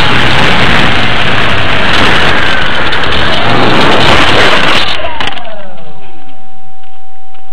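RC airplane's motor and propeller, with wind rushing over the onboard camera's microphone, make a loud steady noise that cuts off about five seconds in as the plane comes down onto the pavement. A few knocks mark the touchdown, and the motor winds down in a falling whine. A steady tone is left.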